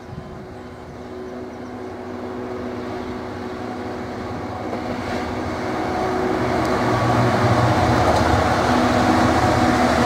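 Class 66 diesel-electric locomotive, with its two-stroke V12 diesel engine running, hauling a container freight train, growing steadily louder as it approaches. The rumble of wheels on rail builds behind the engine.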